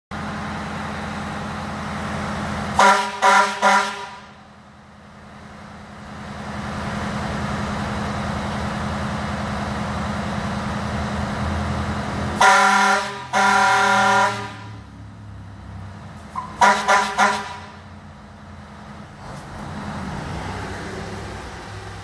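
Retuned Grover air horns on a fire truck sounding in sets of blasts. First come three short toots, then about ten seconds later two longer blasts, then three short toots again, over a steady low hum.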